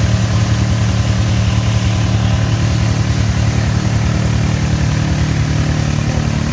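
A vehicle engine idling steadily at an even speed, with no revving.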